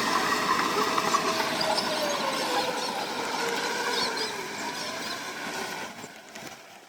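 Heavy earthmoving machinery working: a diesel engine running with metallic clatter, its pitch dropping a little a couple of seconds in. The sound fades away near the end.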